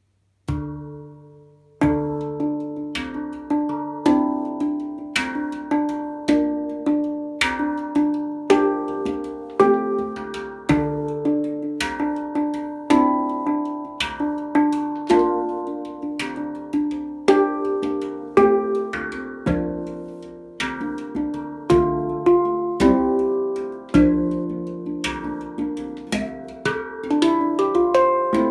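Hang drum (handpan) played by hand: a steady stream of struck, ringing steel notes, each sustaining and fading, forming a melody, starting about half a second in.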